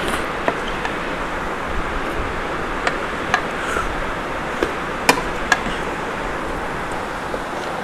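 Metal spoon and chopsticks clicking against a noodle bowl several times during eating, the loudest click about five seconds in, over a steady background hiss.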